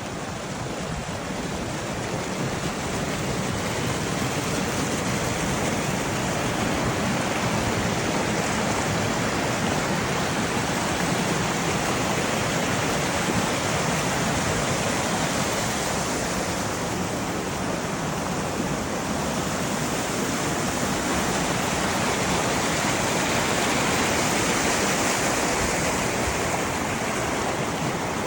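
Small waterfall, water pouring and splashing in a steady rush.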